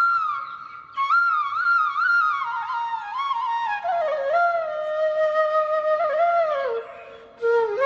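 Background music: a solo flute playing an ornamented melody that steps down from high to low notes, with two short pauses between phrases.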